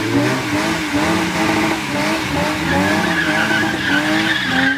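Car engine revved up and down in quick repeated pulses while the tyres squeal, a steady high screech building from about halfway in: a burnout.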